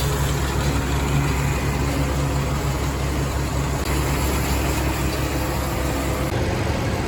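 Massey Ferguson 1105 tractor's six-cylinder diesel engine running steadily as it moves the round baler, with a slight change in its note about six seconds in.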